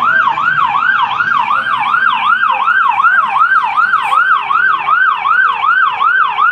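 Fire truck siren in fast yelp mode, a loud rapid up-and-down whoop about three times a second, as the fire engine comes up the street.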